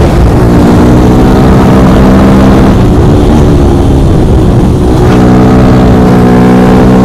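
Yamaha R15's single-cylinder engine running at high revs under hard acceleration at about 87 km/h, with wind rushing over the microphone. The engine note breaks up twice, about three and five seconds in, then holds steady and strong.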